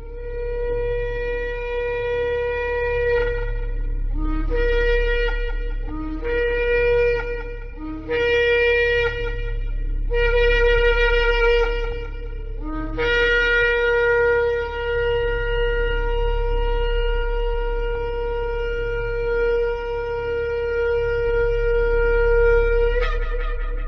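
Ram's-horn shofar blown in a sequence of blasts. It sounds one long note, then four shorter notes that each jump up from a brief lower pitch, then one note held for about ten seconds that lifts upward at the end.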